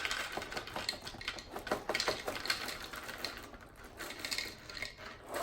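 Dry Chips Ahoy cereal pieces clattering as they are poured from the bag, a rapid run of small crisp clicks and rattles that thins out near the end.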